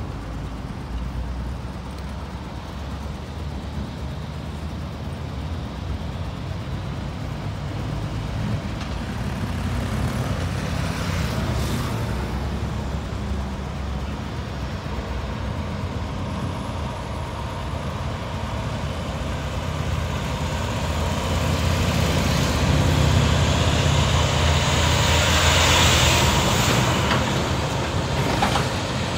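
City traffic: a steady low rumble of idling and passing vehicle engines with road noise. It grows louder in the last third as a convoy of military trucks comes up to the intersection.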